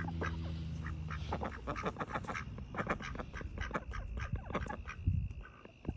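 Domestic fowl calling in a quick run of short notes throughout.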